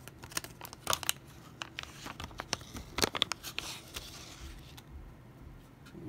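Anti-static plastic bag crinkling and crackling in the hands as an SSD is unwrapped from it, a busy run of sharp crackles that dies down about four and a half seconds in.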